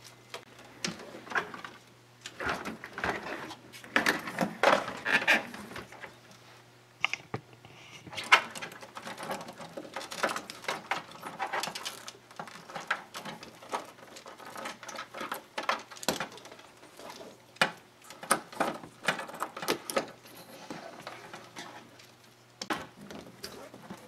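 Computer power cables being handled and routed through the back of a PC case: irregular rustling of sleeved cable, with sharp clicks and taps as connectors and cable bundles knock against the case panel.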